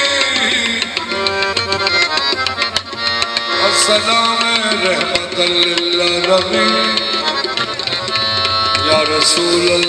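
Qawwali music: a harmonium playing a sustained melody over a fast tabla rhythm.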